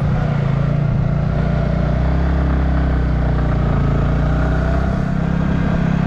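Motorcycle engine running at a steady pitch while riding along the road.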